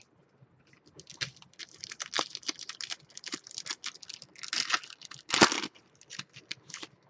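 Foil wrapper of a football trading card pack being torn open and crinkled by hand: a quick run of sharp crackles from about a second in, the loudest tear a little past the middle.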